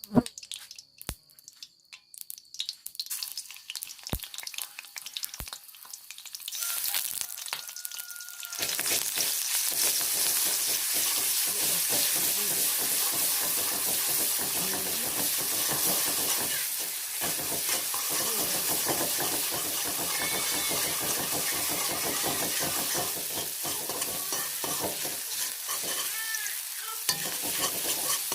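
Food frying in hot oil: the sizzle sets in about seven seconds in, swells within a couple of seconds and then holds steady. Before it, a few single sharp knocks sound over quiet.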